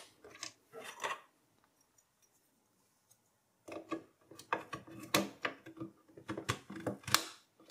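Memory modules being slid into a motherboard's RAM slots and pressed home by hand: a few sharp plastic clicks, a pause, then a longer run of clicks and scrapes.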